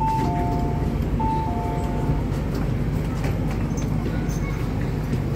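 A two-note electronic chime, high then low, sounding twice inside an MTR C-Train carriage over the train's steady low rumble.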